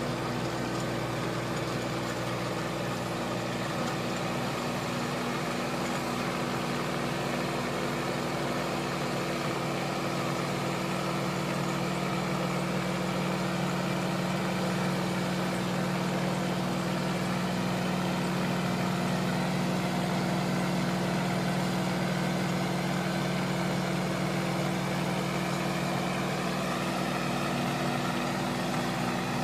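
Tractor engine running steadily at a constant pitch as it pulls a rear-mounted rotary tiller through soil.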